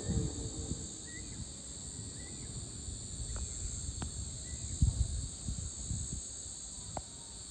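Crickets and other insects trilling in a steady, high-pitched evening chorus, with a few short bird chirps and a couple of sharp clicks. Irregular low rumbles sit underneath, strongest about five seconds in.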